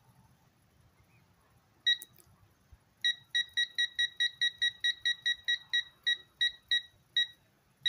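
Quinn digital torque adapter beeping at each button press while its target torque is stepped down to 50. One beep comes about two seconds in, then a quick run of short, same-pitched beeps at about five a second, then two more near the end.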